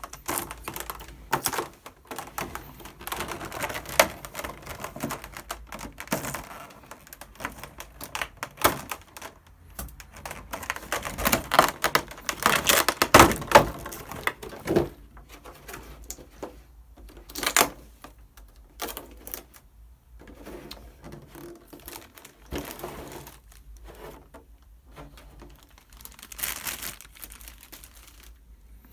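Plastic clamshell packaging being pried open and handled: many irregular clicks and crackles of stiff plastic, densest and loudest about halfway through.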